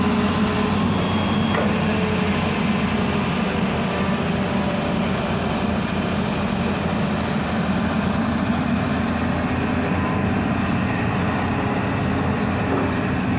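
Hitachi ZX210 hydraulic excavator's diesel engine running steadily as the machine digs and swings its bucket.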